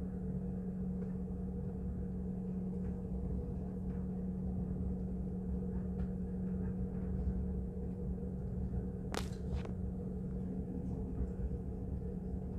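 Regional train running at steady speed, heard from inside the passenger car: a constant rumble with a low hum. Two sharp clicks about half a second apart come about nine seconds in.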